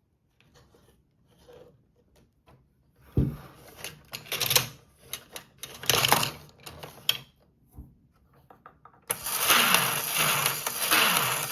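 Plastic parts of a Hot Wheels Tune-Up Shop toy playset clicking and rattling as they are handled, in short irregular clusters. About nine seconds in, a loud continuous rushing noise starts suddenly, with a falling tone repeating about twice a second.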